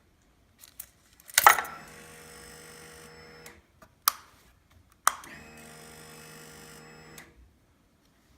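Honda CBR250 starter motor cranking the engine twice, each spell about two seconds long and steady, each opening with a sharp click. A lone click comes between them, and the engine does not fire: a motorcycle that won't start.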